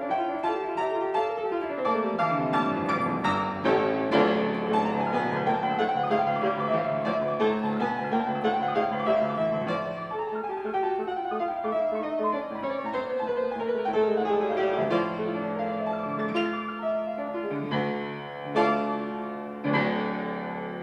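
A 1975 Yamaha G3 grand piano, fitted with new strings and new German hammer heads, played in a classical style: flowing runs over sustained chords, ending with a few strongly struck chords.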